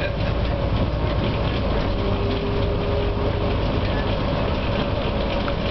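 Cabin noise inside a NABI 416 diesel transit bus under way: a steady low engine and road rumble. A thin steady whistle runs over it, the strange whistling from the rear of the bus, and a second, lower tone joins for about a second and a half mid-way.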